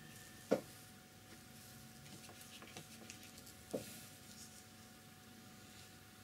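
Two short light knocks about three seconds apart, the first the louder, with a few faint ticks between them, over a faint steady room hum.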